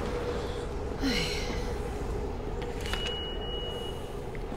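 Steady low rumble and hum of a subway station's background noise. There is a brief breathy sound about a second in, and a faint high tone lasting about a second near the middle.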